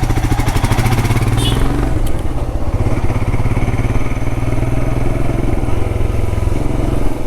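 Motorcycle engine running while riding, its beat easing off to a slower pace about two seconds in.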